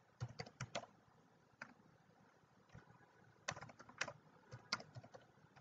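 Faint computer keyboard typing: keystrokes come in small uneven runs with pauses between, as a password is typed in.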